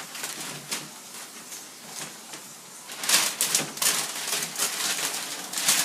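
Wrapping paper being torn and crinkled off a gift in short, crackly rustling bursts, sparse at first and much busier from about halfway through.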